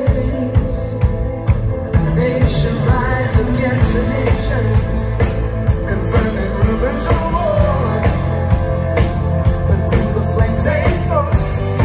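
Rock band playing live, drum kit, electric guitar, bass guitar and keyboards, with a man singing over a steady beat.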